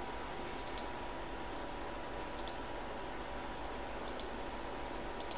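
Computer mouse clicks, about four of them a second or two apart, each a quick press-and-release, re-clicking the button that reshuffles a list randomizer. A faint steady electrical hum runs underneath.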